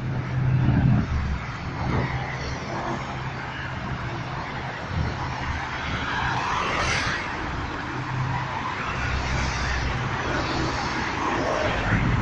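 Cars driving past on a road, engines running with tyre noise; the loudest pass comes about a second in.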